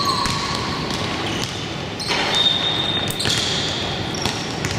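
Youth basketball game in play: sneakers squeaking sharply on the court several times, with the ball bouncing and a background of voices.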